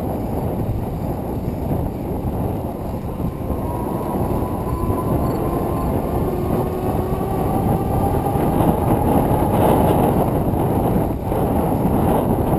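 Wind rushing over the microphone and the rumble of bicycle tyres rolling on a paved trail while riding at speed. A faint thin whine comes and goes through the middle.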